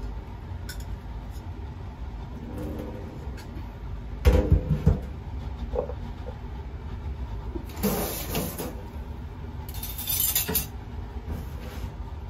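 Pressure-cooker pot knocking down onto a stainless steel sink, a few heavy thumps about four seconds in, followed by two short clattering scrapes of metal handling a little later, over a steady low rumble.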